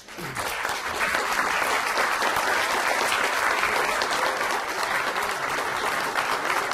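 An audience applauding to welcome a speaker; the clapping swells over about the first second and then holds steady.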